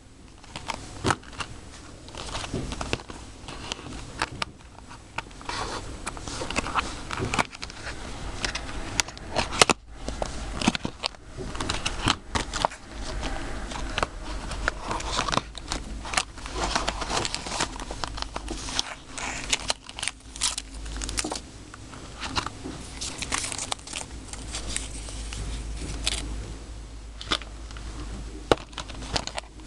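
Plastic wrappers of chocolate-and-trading-card packs being crinkled and torn open by hand, with many sharp crackles and clicks throughout.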